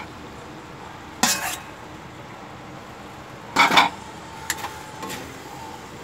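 A metal cooking spoon scraping and clanking against an aluminium wok as leafy greens are stirred into the sauce: one scrape about a second in, a louder double scrape past the middle, then a few lighter clinks, over a steady low hiss.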